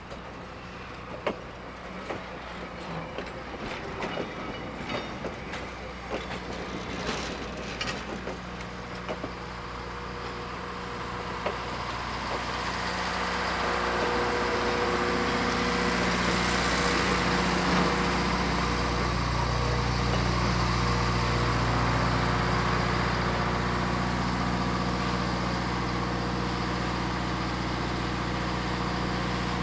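Passenger coaches and a caboose rolling slowly past on the rails, wheels clicking over the rail joints. About halfway through, a steady mechanical hum with a hiss grows louder and holds.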